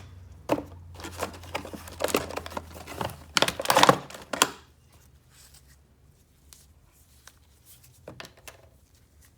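Packaging being handled during an unboxing: a run of crinkling, rustling and tearing over the first few seconds, then quiet with a few faint clicks near the end.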